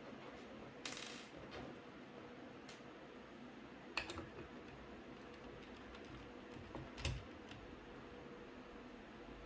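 Small metal clicks and a short scrape from a precision screwdriver working the tiny backplate screws out of a graphics card, with loose screws being set down on a table; a few scattered clicks, the clearest about one, four and seven seconds in.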